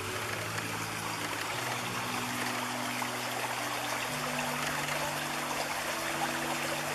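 Shallow rocky river running in riffles over boulders: a steady rushing babble of water. Soft low held notes sit underneath and change pitch every couple of seconds.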